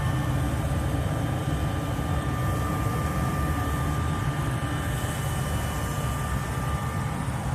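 Steady background noise on the flight deck of a parked Boeing 747-400: an even low rumble with a faint constant whine above it.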